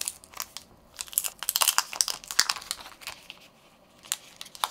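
Clear protective plastic film being peeled off the back of a smartphone: crinkling and crackling, thickest in the middle, with a quiet pause shortly before the end.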